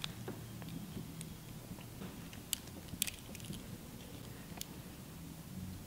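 Faint, scattered small clicks and ticks of a precision screwdriver and tiny screws against the iPhone 6's metal LCD backplate as it is screwed back onto the new screen, with a low steady hum underneath.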